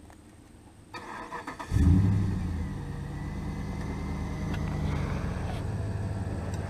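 Truck engine cranked on the starter, catching with a brief rev and then settling to a steady idle.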